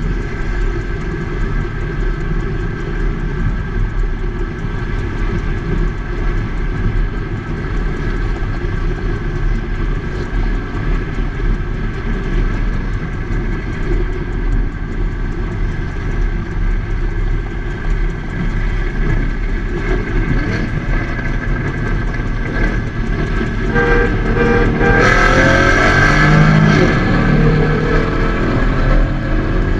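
Holden Commodore's LS3 V8 running at a steady cruise, then revving up as the car accelerates hard from about 24 seconds in.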